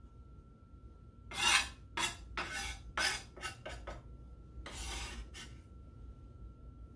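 A chef's knife blade scraping across a wooden cutting board, gathering chopped cilantro, in a series of about seven short rasping strokes.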